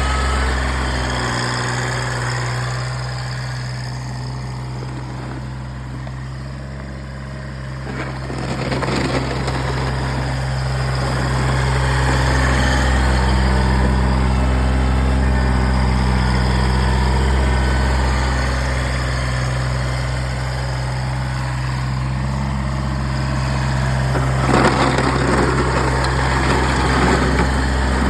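Kubota BX1800 compact tractor's three-cylinder diesel engine running steadily. It eases off a little around seven seconds in and picks up again a second later, with a brief burst of noise near the end.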